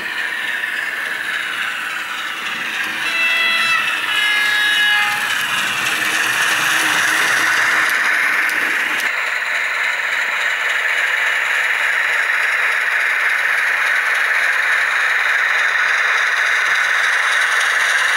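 Märklin H0 V36 model diesel locomotive running under an ESU sound decoder: a steady hiss of decoder sound from its small speaker mixed with wheel and track noise. A short run of clear, stepped tones about three to five seconds in.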